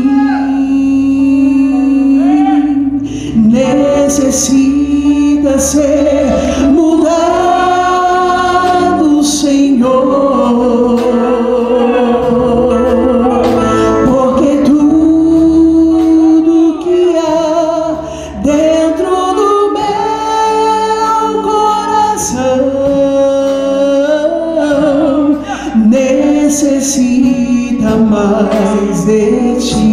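Gospel worship music: voices singing a slow praise song in long, held notes over instrumental accompaniment.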